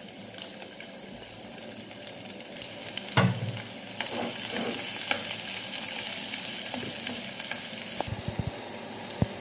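Minced garlic sizzling in hot oil in a frying pan, stirred with a spatula that scrapes and taps the pan. The sizzle grows louder about two and a half seconds in and eases near the end, where a few knocks of the spatula against the pan come.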